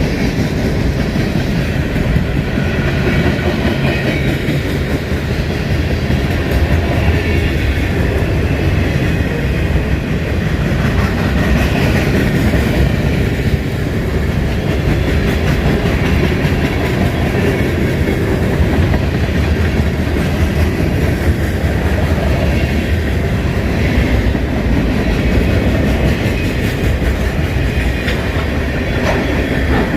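Railroad cars rolling past, their wheels clicking over the rail joints, with a steady loud rumble throughout.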